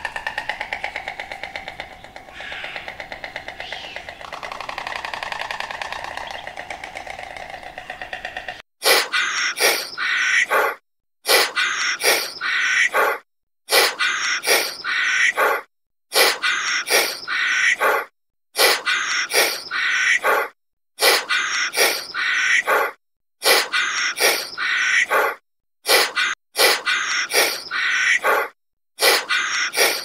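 Dubbed-in animal calls. For the first eight seconds or so there is a drawn-out, wavering pitched call. After that come about ten bursts of harsh bird calls, each a second or two long, cut apart by dead silence.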